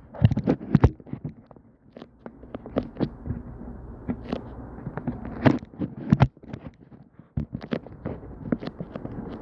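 Irregular clicks, taps and scrapes of things being handled close to the microphone, with a low rumble underneath.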